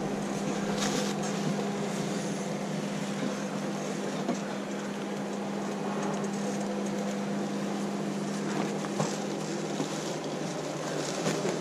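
4x4 off-road vehicle running steadily on a trail, a constant engine drone under a broad rumble, with a few light knocks now and then.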